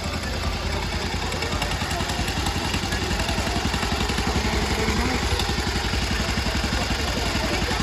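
Small engine of a miniature ride-on train running with a fast, steady pulse.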